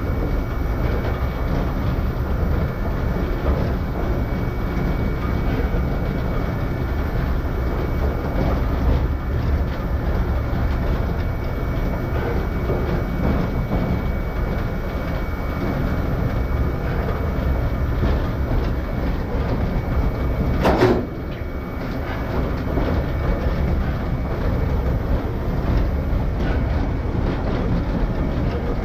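Train running along a branch line, heard from a camera mounted on the front: a steady rumble of wheels on rail with a faint steady whine. About 21 s in there is one sharp noise, after which the running sound is briefly a little quieter.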